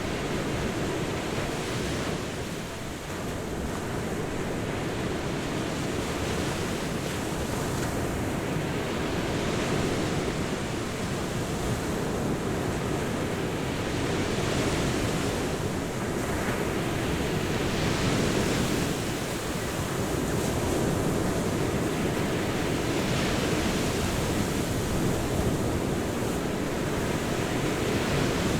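Ocean waves breaking on a beach: a continuous rush of surf that swells and eases every few seconds.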